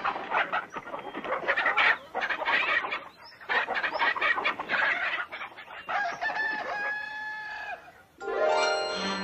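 Chickens squawking and clucking in a commotion, then a rooster crowing from about six seconds in. Music comes back in near the end.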